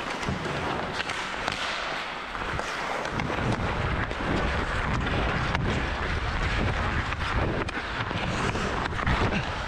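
Ice skate blades scraping and gliding on the ice, with wind rushing over a head-mounted camera microphone, and a few sharp clicks of a hockey stick handling the puck.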